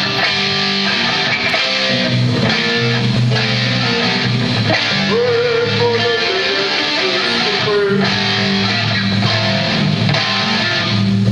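Music with guitar playing, loud and continuous, with a wavering held note about halfway through.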